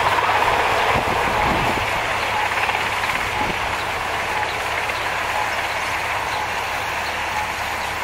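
Marine One presidential helicopter descending to land, its rotors and turbines making a steady loud din with a deep hum underneath, easing off a little as it comes down.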